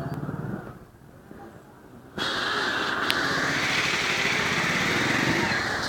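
Motorcycle engine running with road and wind noise as the bike moves. The noise drops low for about a second and a half, then cuts back in abruptly and stays loud.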